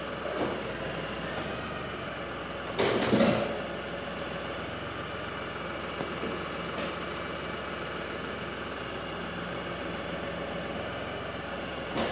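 LS compact tractor's diesel engine idling steadily while its remote hydraulic valve is worked to extend and retract a hydraulic top link. A louder rush of noise comes about three seconds in.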